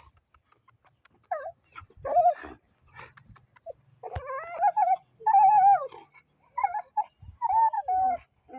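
A dog whining in a series of wavering calls that rise and fall in pitch: a couple of short ones, then a longer, almost unbroken run from about four seconds in.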